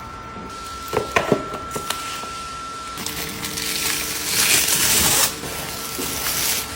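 Handling noises from unboxing and packaging: a few sharp knocks and clicks about a second in, then a rough rustling, scraping noise for about two seconds.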